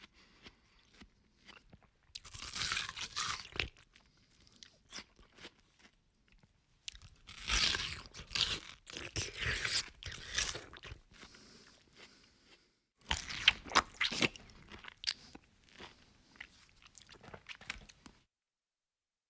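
A person biting and chewing crunchy food close to the microphone: loud bouts of crunching about 2 s in, again from about 7 to 11 s and 13 to 15 s, with quieter chewing clicks in between. The sound cuts off suddenly near the end.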